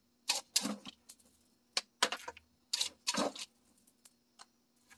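Plastic scoop digging into potting soil mixed with coarse granite sand and pouring it into a plastic pot: a string of short gritty scrapes and pours, about eight in five seconds.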